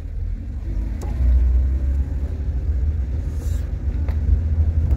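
Car driving: a steady low rumble of engine and road noise, a little louder from about a second in.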